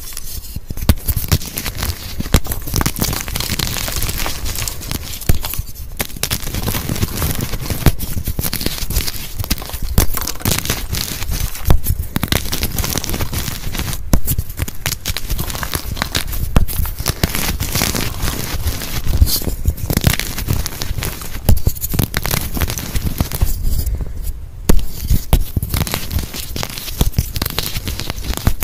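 Dyed gym chalk blocks being snapped and crushed by hand: a dense, continuous crunching and crackling of chalk crumbling, with many sharp snaps as pieces break off.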